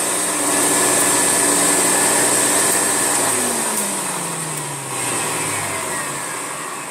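Hoover Turbolite vacuum cleaner running, then switched off about three seconds in, its motor winding down with a falling whine.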